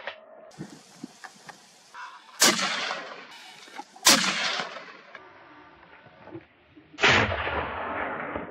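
Three gunshots from a hunting gun fired at a running wild boar: the first about two and a half seconds in, the second under two seconds later, the third about three seconds after that. Each bang trails off in a long echoing tail.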